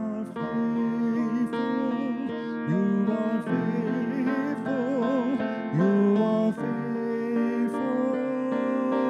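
Piano playing a slow worship-song accompaniment while a man's voice sings without clear words, scooping up into several notes and holding long notes with vibrato.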